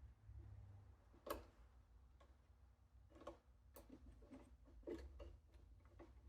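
Near silence with a low hum, broken by a few faint, separate clicks and taps from handling electrical wires and a screwdriver at a junction box, the loudest about a second in.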